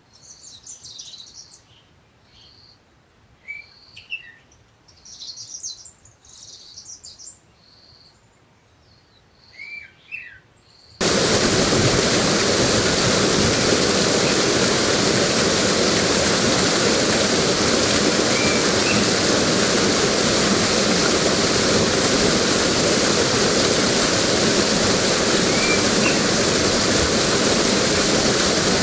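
Songbirds chirping and giving short whistled notes against a quiet background. About eleven seconds in it cuts abruptly to loud, steady rushing water, with a few faint bird chirps over it.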